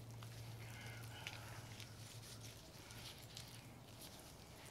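Faint, irregular wet rubbing and squishing of a gloved hand spreading mustard slather over a raw pork butt on a metal sheet pan, over a low steady hum.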